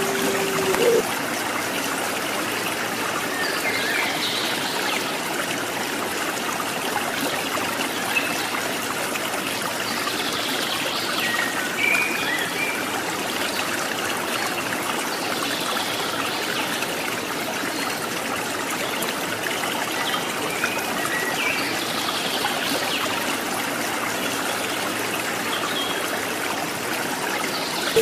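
Steady trickling of a small stream, with a few faint high chirps scattered through it. The last of a puter pelung (ringneck dove) coo trails off about a second in.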